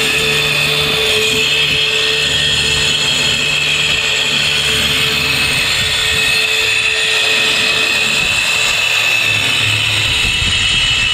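Jigsaw running steadily as it cuts a sheet of maple plywood.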